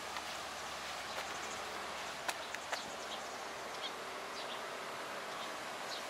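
An insect buzzing faintly over a steady outdoor hiss, with two sharp clicks about two and a half seconds in.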